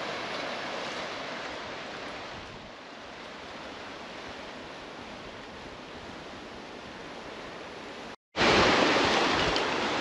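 Surf washing and breaking over a coral reef's edge, a steady rushing noise. It cuts out briefly about eight seconds in and comes back louder.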